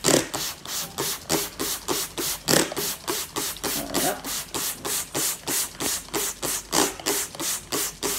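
Hand-held trigger spray bottle squirting soapy water onto loose wool fleece, wetting it down for wet felting: a quick, even run of short hissing squirts, about four a second.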